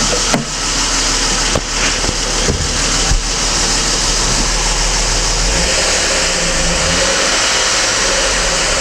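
BMW M52 straight-six engine blipped a few times, then settling to a steady idle, with loud hydraulic lifter knocking throughout: worn hydraulic valve lifters due for replacement.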